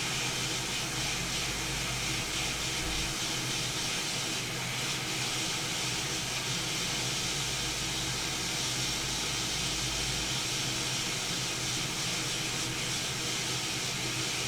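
Hot air rework station blowing a steady hiss of hot air onto a circuit board to melt the solder and free a through-hole power button for desoldering.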